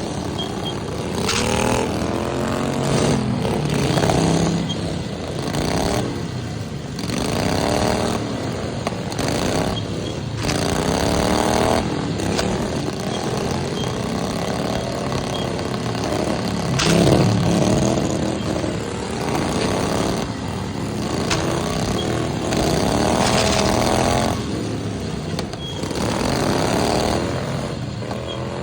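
Several small lawnmower engines running together, revving up and down, with a few sharp knocks now and then.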